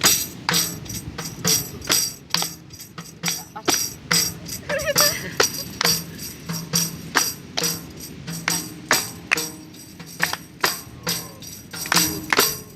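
Capoeira music, with a pandeiro (tambourine) struck in a steady rhythm of about two beats a second, its jingles ringing over a low steady tone.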